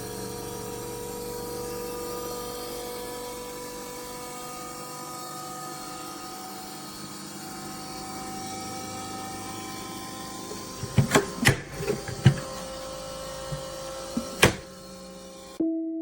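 Portable 12-volt compressor fridge running with a steady, multi-tone mechanical hum. About eleven to twelve seconds in comes a quick cluster of knocks and clicks, and one more sharp knock near the end.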